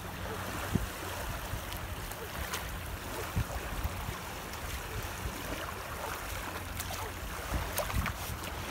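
Shallow surf washing on a sandy shore, a steady hiss, with wind rumbling on the microphone and a few brief thumps, the loudest about a second in and about three and a half seconds in.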